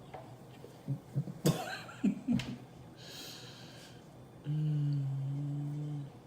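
A woman's throat and breath sounds while drinking Coca-Cola to burp: a few short throaty gulps with a click, a breath out, then a low steady hum held for about a second and a half near the end.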